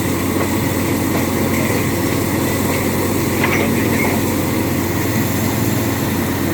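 Borehole drilling rig running steadily under load: a loud, even engine drone.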